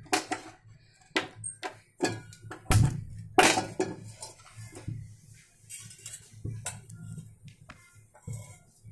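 Metal kadhai (wok) being set down and shifted on a gas stove's burner: a series of knocks and clinks, the loudest a little under three and three and a half seconds in, over a low steady hum.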